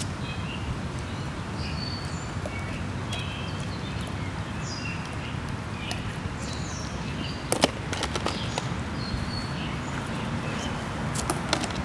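Birds chirping over a steady low outdoor rumble, with a few sharp clicks about two-thirds of the way through and more near the end.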